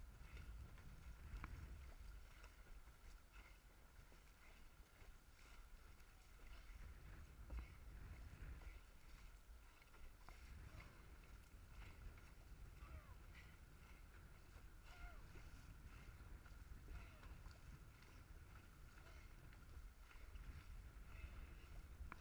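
Faint, low rumble of wind and water rushing past a paddled dragon boat, with scattered faint splashes and knocks from the paddles.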